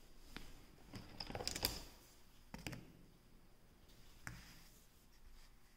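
Faint clicks and taps of a clear plastic ruler being set down and moved into place on a textbook page: a few scattered clicks, the loudest cluster about one and a half seconds in.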